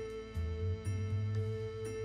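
Background music: soft, gentle instrumental with sustained notes over a bass line that changes every half second or so.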